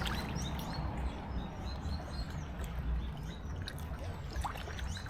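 Outdoor ambience: water trickling, a steady low rumble, and a few short bird chirps near the start and around the middle.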